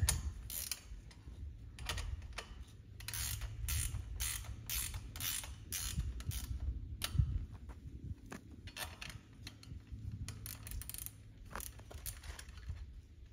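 A 10 mm ratcheting wrench clicking in short runs with brief pauses as it backs off the nuts on the U-bolts of a post clamp.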